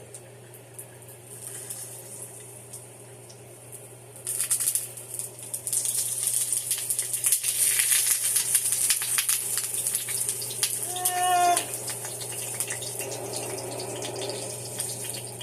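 Kitchen tap turned on about four seconds in, water running and splashing into the sink. About two-thirds of the way through there is a brief high squeak.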